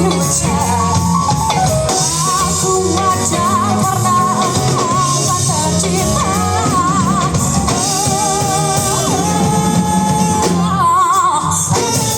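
A band playing a song: a lead voice singing held notes with vibrato over drums and guitar.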